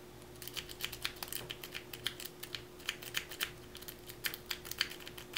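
Sparrows Octo Rake scrubbing in and out of a Brinks solid brass pin-tumbler padlock under light tension: a quick, irregular run of small clicks as the rake passes over the pins.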